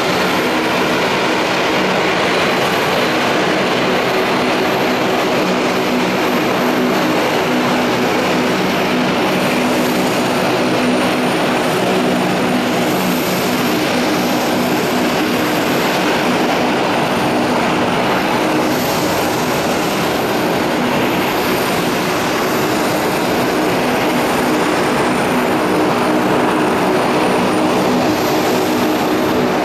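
Boeing 737-800's CFM56-7B turbofan engines running at low taxi thrust as the airliner taxis and turns on the runway: a steady jet noise with a few held tones.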